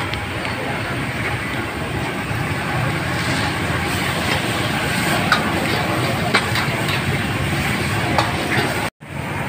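Steady street noise with traffic, broken by a few short clicks and knocks, and a brief dropout to silence near the end.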